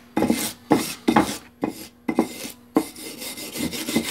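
Hand-held steel wire brush scrubbed back and forth over a fresh stick-weld bead on steel sheet, cleaning off slag and residue: a run of rasping strokes, roughly two a second.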